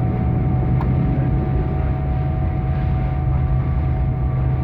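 Jet airliner noise, a steady engine drone over rushing air with a few steady whining tones above it. There is a faint click about a second in.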